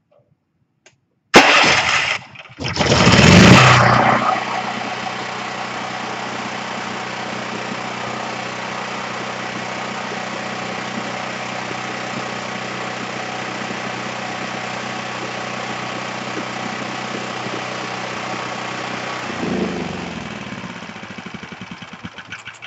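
Powerhorse 11000-watt portable generator's gasoline engine, on freshly changed oil, cranked by its electric starter: it catches a second or so later with a loud surge, then settles into a steady run. Near the end it is shut off and runs down.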